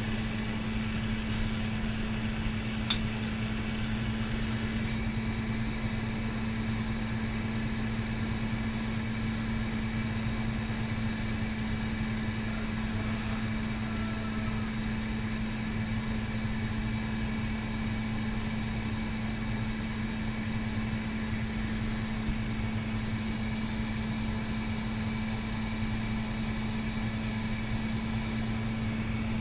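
Glassworking bench torch burning steadily over a constant low mechanical hum, with one sharp click about three seconds in.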